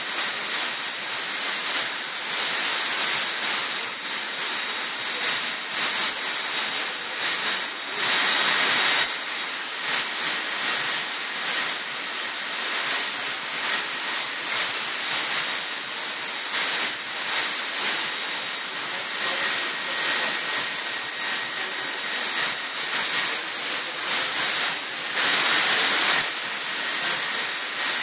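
Laser cutting machine running while it cuts a clear acrylic sheet: a loud, steady airy rush with a constant high-pitched whine on top. Twice the whine drops out for about a second while the rush swells.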